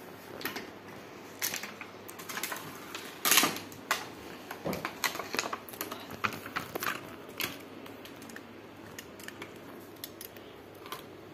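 Crinkling plastic packaging and card being pulled off a plastic toy watch, with scattered clicks as the watch is handled. The noises thin out after about eight seconds.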